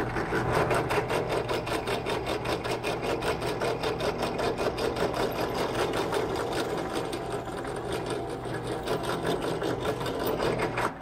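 Benchtop drill press running, drilling a hole through a metal hinge into a wooden rudder pedal: a steady motor hum with a fast, even ticking from the machine.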